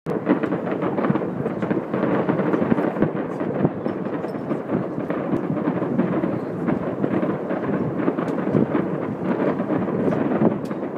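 Fireworks display finale: a dense, unbroken barrage of shell bursts and crackle that blurs into a continuous rumble.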